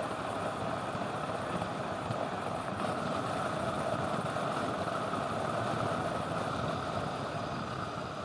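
Steady wind rushing over the microphone on a fast road-bike descent.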